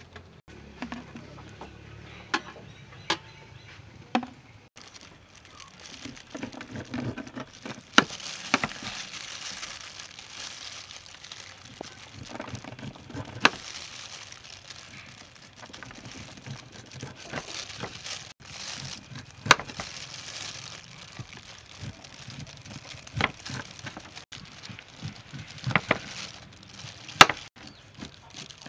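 Kitchen knife shaving kernels off a cooked ear of sweet corn onto a wooden tray: a steady crackling rasp as the blade runs down the cob, with a sharp knock every few seconds as it strikes the tray. A few sharp clicks come in the first seconds.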